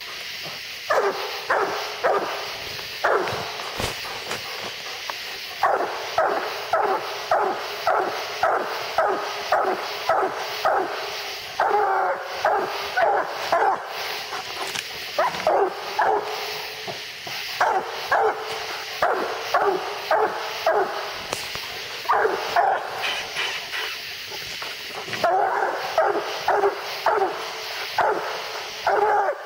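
Black and tan coonhound barking treed at the base of a tree: rapid, repeated barks about two a second, in bouts with short breaks. This is the hound's signal that it has game up the tree.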